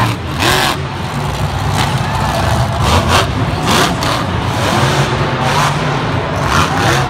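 Monster truck's supercharged V8 engine revving hard, the pitch rising and falling with throttle as the truck drives, jumps a dirt ramp and lands, with repeated sudden surges.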